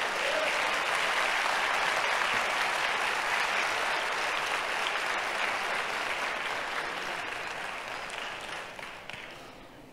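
Congregation applauding, starting all at once and dying away over the last few seconds.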